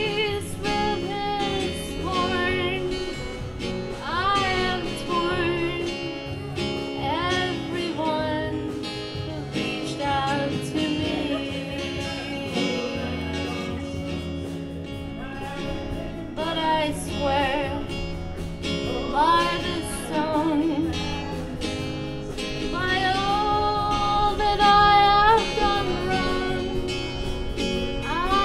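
Live acoustic duo: a woman singing a slow melody over a strummed acoustic guitar.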